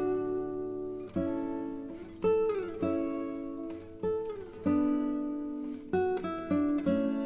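Background music: a plucked guitar playing a slow tune, a new note or chord struck about once a second and left to ring out, with a few notes sliding down in pitch.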